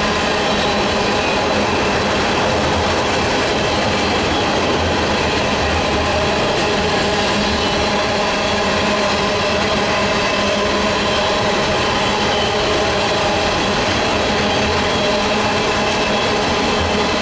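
Empty coal hopper cars rolling across a steel girder railroad bridge: a steady, loud rumble of wheels on rail with several steady high notes running through it.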